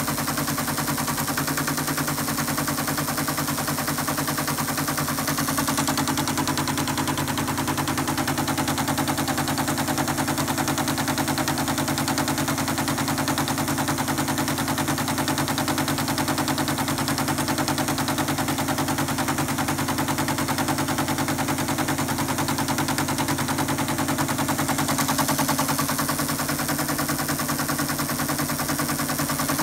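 ASR-33 Teletype paper-tape reader clattering rapidly and steadily as it reads a punched tape of Microsoft BASIC into the computer.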